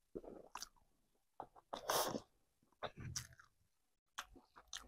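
Soft eating sounds close to the microphone: chewing and fingers working rice on a plate, in scattered small clicks and scrapes. A short breathy burst about two seconds in is the loudest sound.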